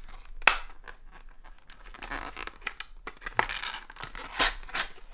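Plastic lure packaging crinkling and rustling as a soft-plastic shad is taken out of its bag, with several sharp crackles, the loudest about half a second in and two more close together around four and a half seconds.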